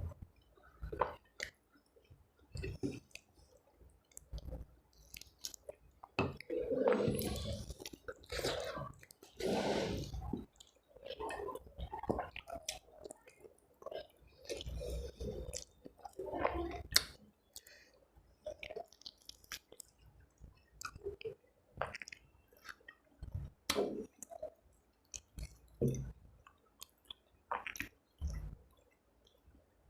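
Close-miked chewing of a mouthful of rice and curry, with irregular wet mouth smacks and clicks, heaviest about six to eleven seconds in.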